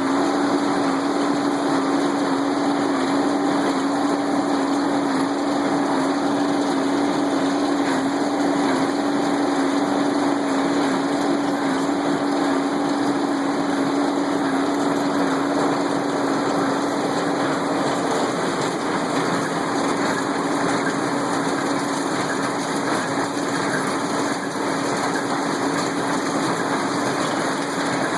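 Tractor engine running at a steady speed while powering an inline baler, a constant hum over the machinery noise with no change in pace.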